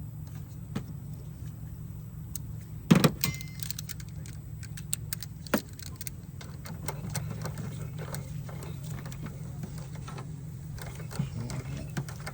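Metal tools and battery-cable parts clinking and knocking as a car battery terminal is worked on, with a sharp cluster of clanks about three seconds in and lighter clicks afterwards, over a steady low hum.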